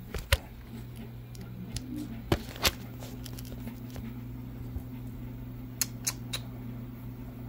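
Scattered sharp clicks and knocks, about six in all, from handling wires and the phone at a workbench while hunting for a bad connection, over a steady low hum.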